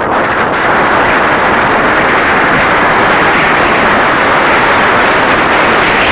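Heavy wind buffeting the microphone: loud, steady wind noise with no let-up.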